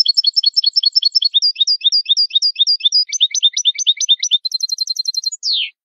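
European goldfinch (jilguero) singing one phrase in the Málaga (malagueño) song style, from a tutor recording used to teach song to cage birds. A fast series of repeated high chirping notes switches to a different trill about three seconds in, then to a buzzy trill, and ends on a single falling note.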